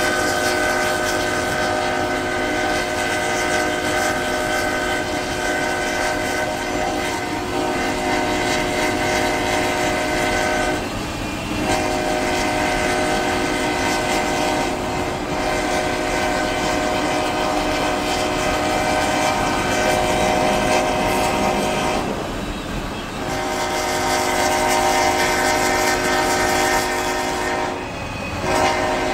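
Diesel locomotive's multi-chime air horn blowing long blasts, a chord of several steady tones, broken by three short pauses, the last near the end. The noise of the moving train runs underneath.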